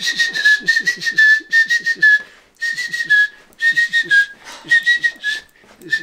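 Bird-like chirping whistle imitating a bird's tweets: runs of quick short chirps at one high pitch, each run dipping slightly at its end, with brief pauses between runs.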